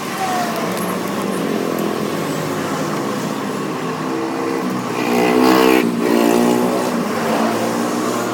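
Motorcycle engine revving, its pitch climbing to a loud peak about five and a half seconds in, then dropping away.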